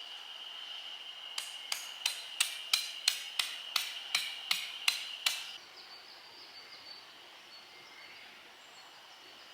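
A hammer driving a tent stake: about a dozen sharp metallic blows at roughly three a second, stopping about halfway through. A steady high-pitched whine runs under them and cuts off just after the last blow.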